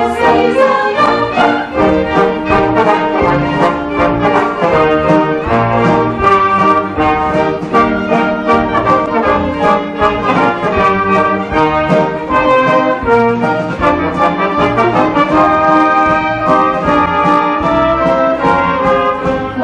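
Theatre pit orchestra playing an instrumental number, with brass to the fore.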